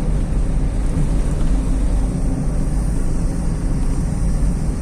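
Steady road and engine noise heard inside a moving car: an even low rumble of tyres and engine at cruising speed.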